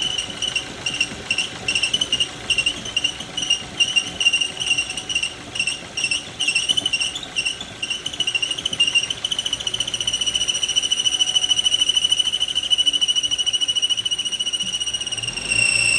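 High-pitched squeaking from a Ford Focus at start-up, pulsing about twice a second, then drawn out into one continuous squeal about nine seconds in. The squeal sinks slightly in pitch, and the engine's low running sound comes in near the end.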